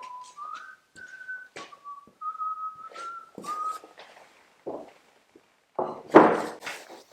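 A person whistling a tune in short held notes, interrupted by knocks and thuds of things being handled; a loud clattering thump about six seconds in.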